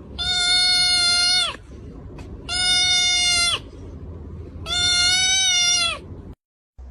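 An animal calling three times: long, level-pitched calls of a second or more each, evenly spaced, over a low background rumble.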